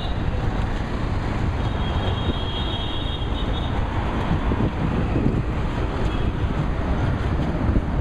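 Steady road traffic noise from a busy city road, with wind rumbling on the microphone.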